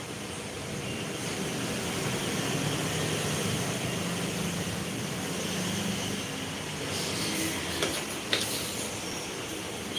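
A steady low rumble that swells through the middle and eases off. A few sharp knocks of a kitchen knife on a wooden chopping board come about seven to eight and a half seconds in.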